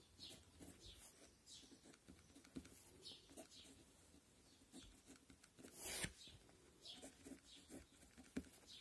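Pen writing on paper: faint, short scratching strokes in quick irregular runs, with one louder scrape about six seconds in.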